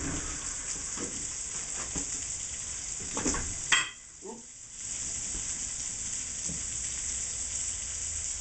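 Food sizzling as it fries in a pan, a steady hiss. About three and a half seconds in comes a sharp click, after which the sizzle drops away for about a second before it returns.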